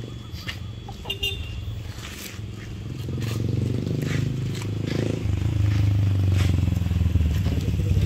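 A motor vehicle engine running with a low steady drone that grows louder from about three seconds in. Scattered crunching clicks sound over it.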